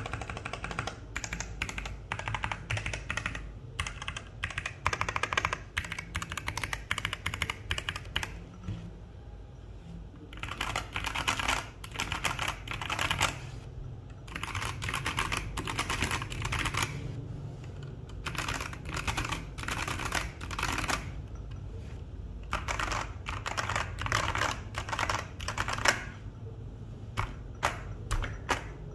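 Typing on a mechanical keyboard with Kailh Polia tactile switches: rapid runs of keystrokes in bursts, with a couple of short pauses.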